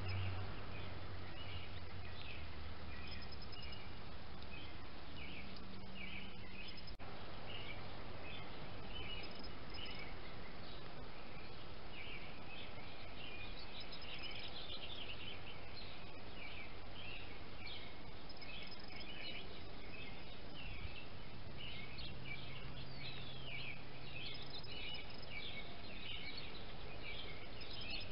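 Birds chirping and singing on and off over a steady hiss of background noise, with a brief dropout about seven seconds in.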